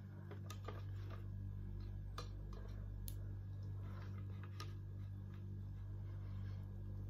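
Eating rice and fish by hand: scattered small clicks and smacks from fingers on the plate and chewing, over a steady low electrical hum.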